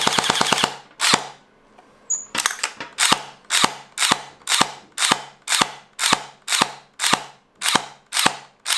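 Electric gel ball blaster (Little Moon ARP9, version 2 gearbox) dry-firing on a 7.4 V battery. It fires a short full-auto burst of rapid snaps at the start, then single semi-auto shots, a sharp mechanical snap about twice a second.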